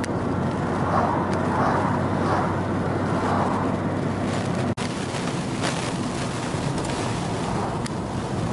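Steady road and wind noise of a moving car, broken by a brief dropout about halfway through.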